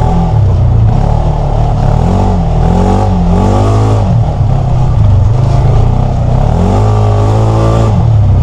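Polaris RZR side-by-side engine driven hard, heard from the cab, its pitch rising and falling several times as the throttle is worked, with a long climb in pitch near the end.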